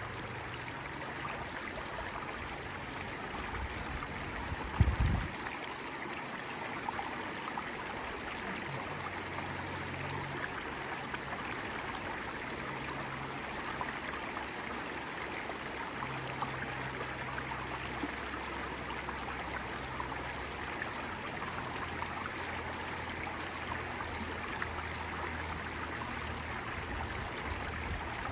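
Flowing stream water running steadily, with a single low thump about five seconds in.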